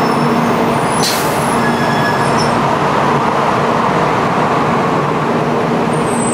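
700 series Shinkansen train pulling out at low speed, the steady running noise of its motors and wheels with a faint hum. A brief hiss about a second in.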